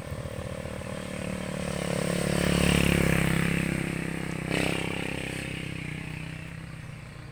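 A motorcycle engine passing by on the road, growing louder to a peak about three seconds in and then slowly fading away. A short knock sounds about halfway through.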